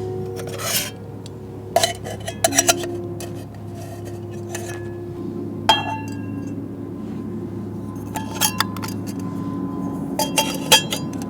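Aluminium cooking pots and lids clinking and knocking together as they are handled, a scattering of light metallic clinks, some ringing briefly.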